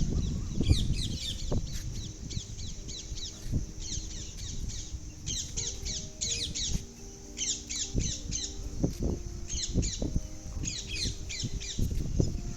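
Small birds chirping in clusters of quick, falling high notes, about eight clusters, over a steady low noise.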